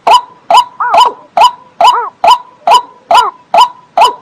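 A waterbird calling a rapid, even series of short, clipped notes, about three a second, some of them rising and falling in pitch.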